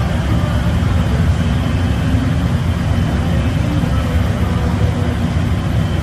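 Steady low roar of a glassblowing studio's gas furnaces and blowers running, with a faint steady high tone over it.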